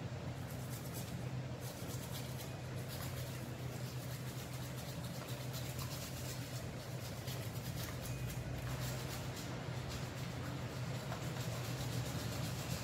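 Steady low hum of a room fan, with faint irregular scratching as a toothbrush is worked over a Siberian husky's teeth.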